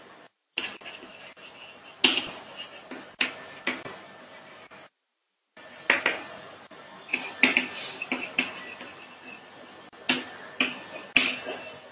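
Chalk tapping and scraping on a blackboard as words are written: irregular sharp clicks, sometimes two or three in quick succession. The audio cuts out briefly twice.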